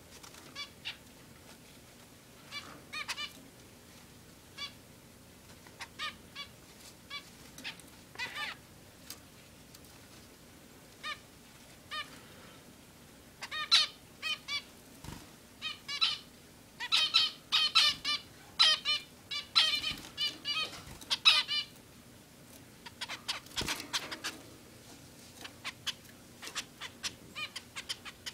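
Zebra finches calling: short, nasal, beep-like calls repeated at intervals, coming thick and fast for several seconds in the middle before thinning out again.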